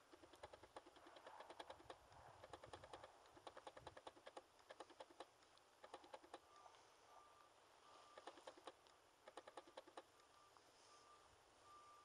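Faint rapid clicking in short runs, with a faint high beep repeating a little faster than once a second from about halfway in.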